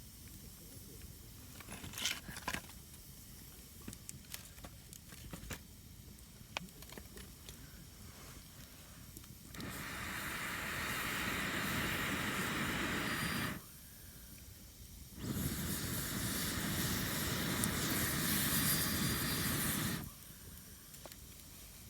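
Campfire crackling with scattered sharp pops, then two loud bursts of rushing hiss, about four and five seconds long, each stopping abruptly.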